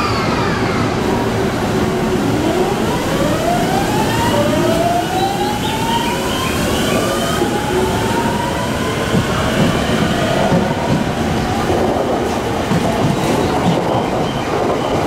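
JR East 209 series 1000-subseries train pulling away and accelerating, its Mitsubishi GTO-VVVF inverter whining in a series of rising tones that step up in pitch, over the rumble of the train.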